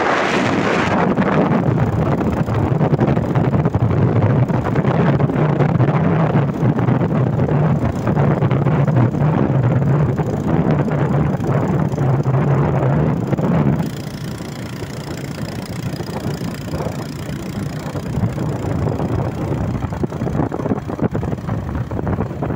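Motorcycle engine running steadily under way, its low hum mixed with wind rushing on the microphone. About two-thirds of the way through, the engine hum drops away suddenly and the sound gets quieter.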